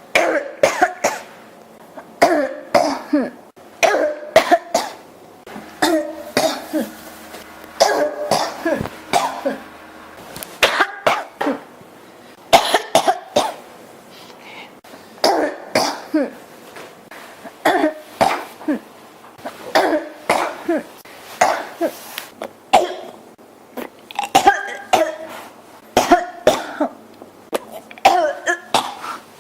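A person coughing over and over in short clusters of two or three coughs every couple of seconds, mixed with throat clearing. The coughing comes from a throat they call scratchy and irritated.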